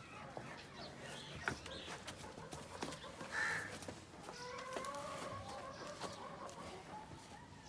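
Chickens clucking, with one short call and then a drawn-out call lasting about three seconds through the second half, over a few scattered knocks.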